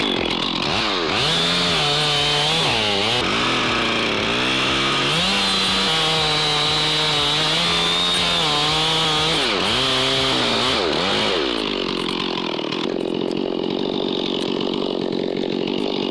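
Large two-stroke chainsaw at full throttle cutting through wood. The engine note dips several times as the chain bogs under load and then climbs back. About twelve seconds in it turns into a rougher, lower sound.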